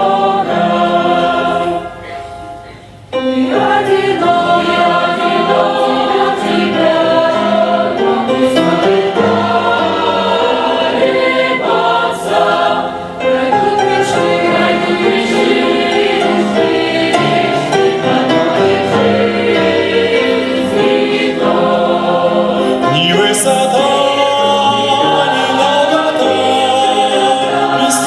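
Choir singing a Christian hymn with musical accompaniment, the music dropping briefly about two seconds in before resuming.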